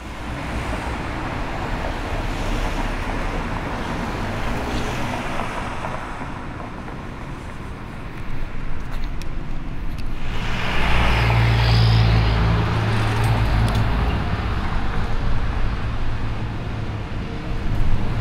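Street traffic: cars passing by in a steady wash of road noise, with a louder vehicle engine passing from about ten seconds in.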